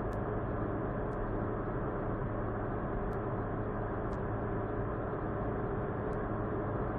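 Car driving at a steady pace: an even drone of engine and tyre noise with no change in speed.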